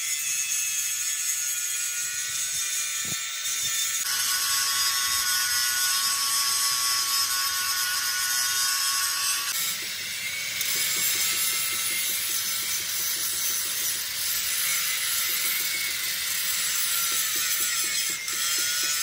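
Angle grinder with an abrasive disc grinding a steel truck front axle beam: a steady high whine over a hissing rasp, changing pitch a few times as the disc is worked along the metal.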